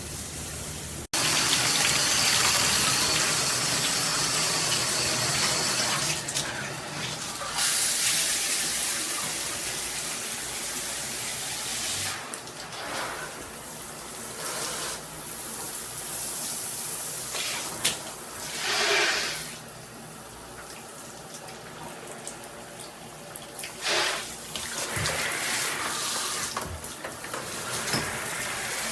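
Water running from a high-pressure handheld shower head, a steady spray that gets much louder abruptly about a second in and shifts now and then as the stream moves.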